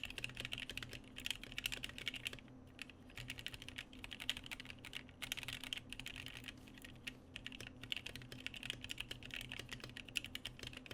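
Typing on a freshly built Gingham mechanical keyboard with Pom Panda switches: a fast, dense stream of key clacks, with two short pauses about two and a half and five seconds in.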